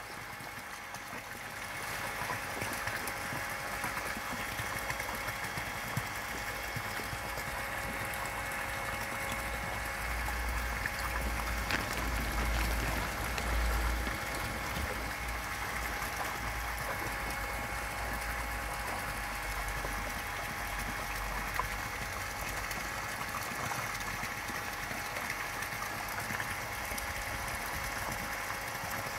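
Garden pond pump or aerator bubbling and trickling at the water's surface, a steady water noise with a faint steady mechanical hum. A low rumble rises for a few seconds in the middle.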